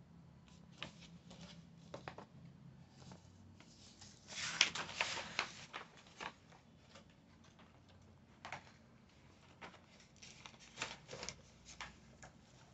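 Pages of a comic book being turned and flicked through by hand: soft paper rustles and crackles, busiest from about four to five and a half seconds in and again a few seconds before the end.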